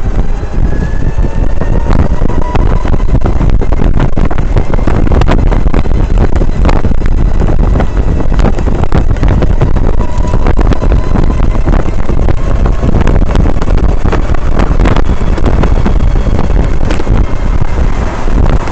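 Skyboard BR60 electric tricycle being ridden, with a loud rumble and wind buffeting the microphone. Irregular clicks and knocks run throughout: extraneous rattling from a nearly new trike. A faint motor whine rises in pitch over the first couple of seconds.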